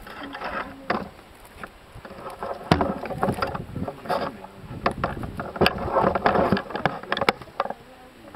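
Irregular crackling, rustling and clicking close to the microphone, with sharp clicks standing out about three, five and a half and seven seconds in.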